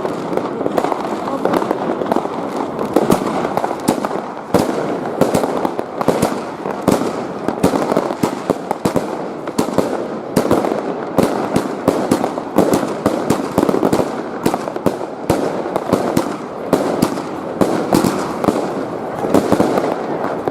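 Many fireworks and firecrackers going off at once: a dense, unbroken din of overlapping bangs and crackling, with sharp reports standing out every fraction of a second.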